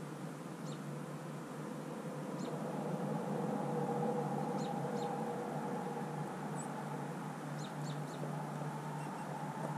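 Short, high bird chirps, often in quick pairs, scattered over a steady low background hum that grows a little louder around the middle.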